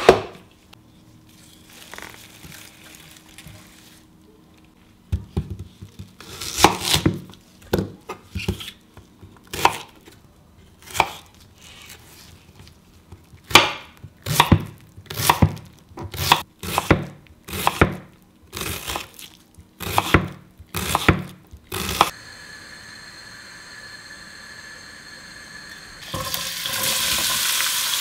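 Chef's knife chopping an onion on a wooden end-grain cutting board: sharp knocks at an uneven pace, roughly one a second. A steady hum follows, and near the end hot oil starts sizzling in a frying pan.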